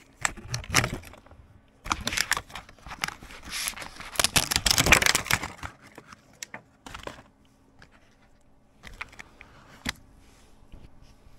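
Thin plastic membrane film layers of a disassembled laptop keyboard being peeled and handled: crinkling and tearing rustles, loudest in the middle, followed by a few light clicks and taps near the end.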